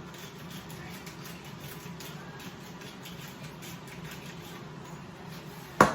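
Pan of sautéing mince beef and potatoes cooking with a low, steady sizzle and faint crackles. A single sharp knock sounds near the end.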